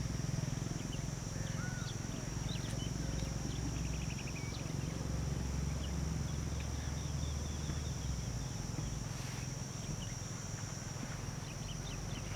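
Outdoor ambience: a steady high-pitched insect drone, with scattered short bird chirps and trills and a steady low rumble underneath.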